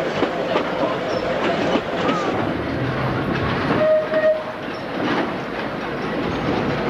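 Sóller tram car running along its track: a steady rattle and clatter of wheels on rails and the wooden car body, with a brief steady tone about four seconds in.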